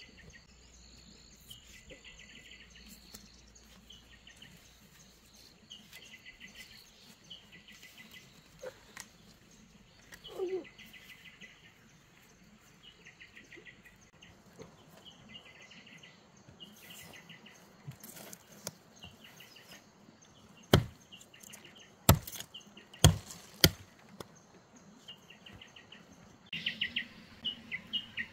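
Short chirping trills of rapid pulses repeat every second or two, louder near the end, over a quiet rural background. About three-quarters of the way through come four sharp knocks in quick succession.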